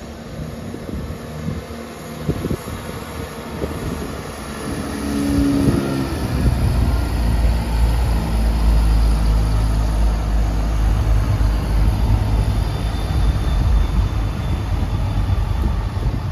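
CrossCountry Class 170 Turbostar diesel multiple unit pulling away from the platform and passing close by, its underfloor diesel engines working under power. A brief engine note comes about five seconds in, then a deep, steady drone that grows loud as the unit goes past.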